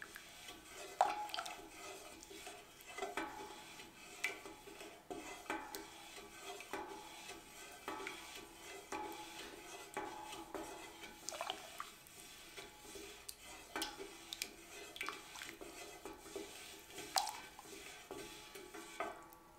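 Wooden spoon stirring tea in a stainless steel pot to dissolve the sugar, tapping against the pot with light, irregular knocks about once a second.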